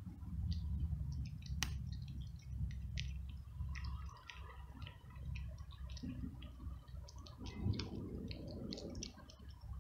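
Tabby cat crunching dry kibble: irregular crisp crunches and clicks as it chews, with one sharper click a second and a half in, over a low steady rumble.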